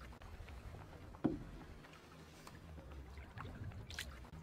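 Canoe paddle strokes: the blade swishes through the water twice, about four seconds apart, with a short thump about a second in, over a low steady hum.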